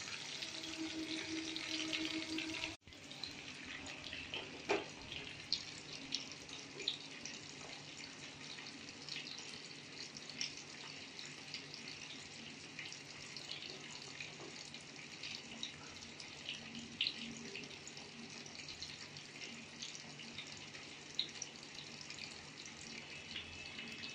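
Whole fish shallow-frying in oil in a kadai: a steady sizzle with many small crackles and pops, with a brief break about three seconds in.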